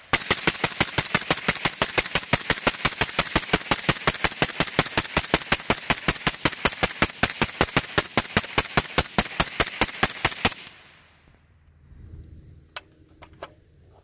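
Suppressed Arsenal SLR104UR short-barrelled 5.45x39mm AK-74 rifle fired semi-automatic in one fast, even string of shots, several a second, for about ten seconds before it stops suddenly. A few light clicks follow as the magazine is taken out.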